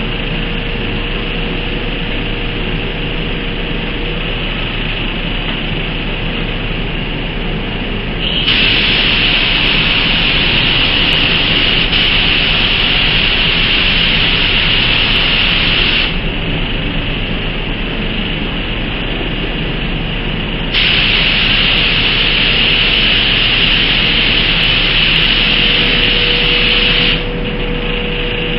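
Gravity-feed paint spray gun hissing in two long passes of about eight and six seconds, each starting and stopping sharply as the trigger is pulled and released. Its air pressure is turned down to 1.5 and the fan is opened wide. A steady background noise runs between the passes.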